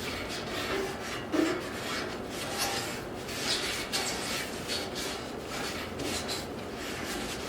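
Rag wiping wax and grease remover off a bare metal motorcycle part: repeated rubbing strokes.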